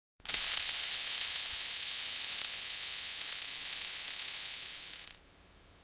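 Welding arc: a steady high hiss that starts suddenly and holds for about five seconds, then drops abruptly to a faint hiss before cutting off.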